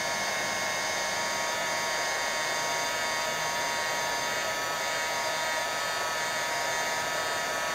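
Small Harbor Freight electric heat gun running steadily on a heat-shrink tube over a crimped spade connector: an even blowing hiss with a steady motor whine.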